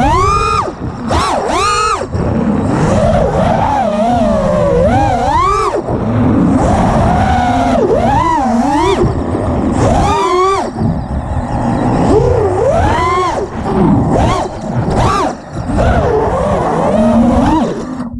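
FPV quadcopter's four TMotor Veloce 2306.5 1950kv brushless motors spinning Gemfan props, heard from the onboard camera: a buzzing whine that swoops up and down in pitch with each throttle punch and chop, cutting off at the very end.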